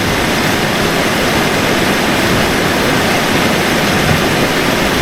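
Steady, loud rushing noise spread evenly from low to high pitches, with no distinct events.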